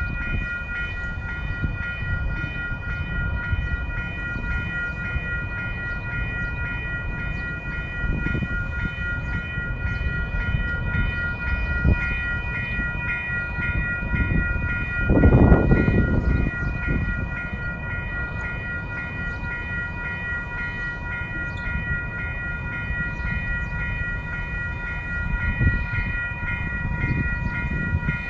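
Trains rolling: a freight train gives a steady low rumble with several steady high whining tones over it, while a light rail vehicle approaches on the next track. A louder rumble swells briefly about halfway through.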